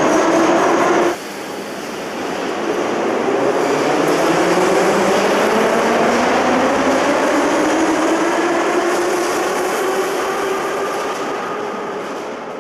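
Electric suburban train running, its motor tone slowly rising in pitch as it gathers speed over a steady rail rumble. The sound drops and changes abruptly about a second in.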